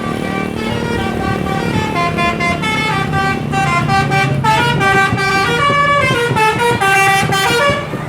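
A bus's Basuri telolet horn, a multi-tone musical air horn, playing a loud tune of stepping notes, several tones sounding together, over the low hum of the bus engine.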